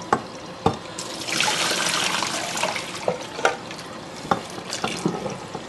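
Cold water running from a kitchen tap into a metal saucepan of boiled eggs, cooling them so they peel more easily. The flow gets louder about a second in and eases back after about three seconds, with several sharp knocks in between.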